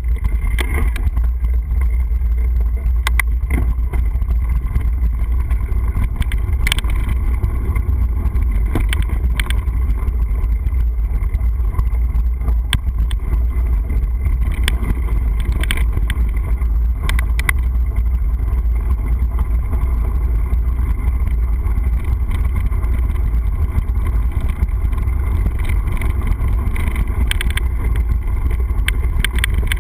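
Wind buffeting a moving action camera's microphone: a loud, steady low rumble, with scattered knocks and rattles from riding over a dirt trail and gravel.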